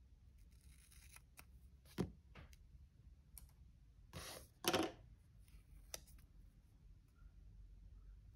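Small craft scissors snipping a strip of printed sticker paper, a few quiet separate cuts. About halfway there is a louder knock as the scissors are put down on the desk, then soft paper handling.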